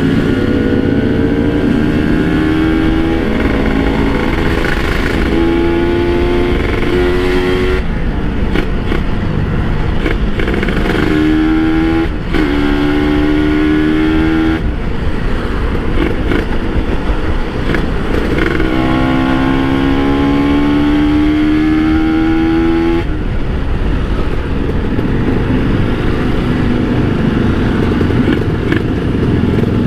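Kawasaki Ninja RR two-stroke motorcycle engine running on the road, its pitch climbing four times under throttle and dropping off sharply each time the throttle closes or it shifts gear.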